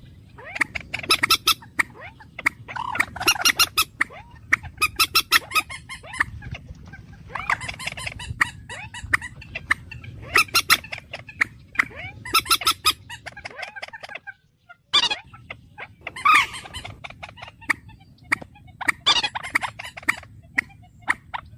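Birds calling in quick, loud, repeated bouts of harsh notes, with a brief break about fourteen seconds in.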